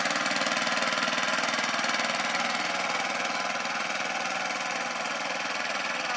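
A diesel engine running steadily with a fast, even knocking chug, a heavy-working, tractor-like pounding.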